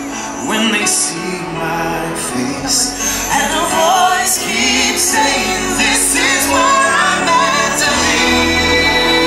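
Fireworks show soundtrack music with singing.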